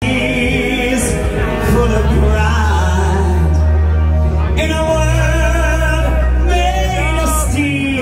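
A voice singing over loud backing music with a deep, held bass line.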